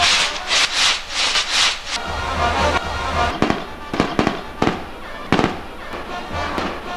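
Fireworks on a bamboo castillo tower going off: a dense, pulsing hiss and crackle of spark fountains, then separate sharp bangs about midway through. Band music plays underneath.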